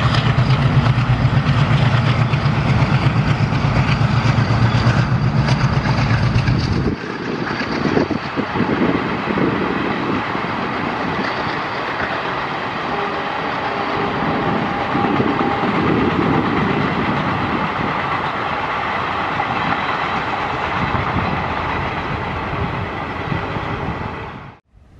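A pair of diesel locomotives passing, with a deep, loud engine throb for the first seven seconds or so. Then the passenger coaches roll by with steady wheel-on-rail noise and a clickety-clack over the rail joints, until the sound cuts off suddenly near the end.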